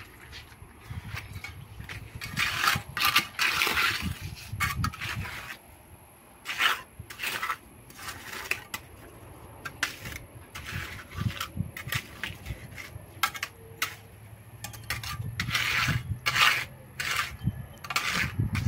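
Steel mason's trowel scraping and tapping on wet concrete as it is scooped and packed into a footing hole, in irregular strokes of a second or less.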